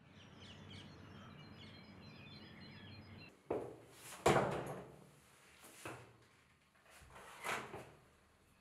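Birds chirping over a low, steady outdoor hum for about three seconds. This cuts off abruptly and gives way to a hotel room door being unlocked and opened: a click and several thumps, the loudest about four seconds in.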